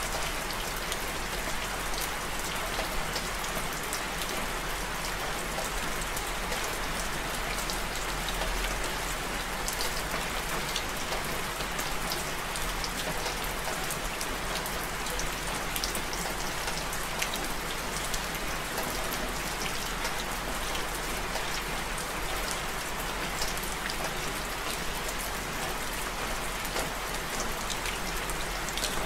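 Steady rain falling, with many sharp drop ticks scattered through it.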